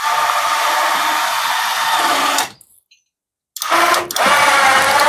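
12-volt DC electric winch running under load, pulling the copper windings out of a washing machine motor. It runs for about two and a half seconds, stops for about a second, then starts again with a steady pitched hum.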